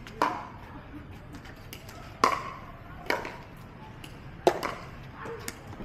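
Pickleball paddles striking the hollow plastic ball in a rally: four sharp pops at uneven intervals, each with a short ring, with fainter taps between them.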